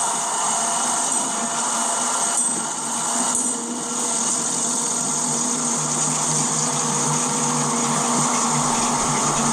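Model railway diesel locomotive running on the track, its small electric motor giving a steady whine and hum with the rolling noise of the train's wheels. The low hum grows stronger about halfway through as the train of coaches passes close by.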